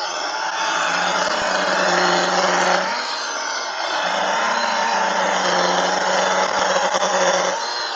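Milwaukee M18 Fuel battery chainsaw running with its chain cutting through a thick log, a steady electric motor hum over the noise of the chain in the wood. The motor drops out briefly about three seconds in, runs again, and stops near the end.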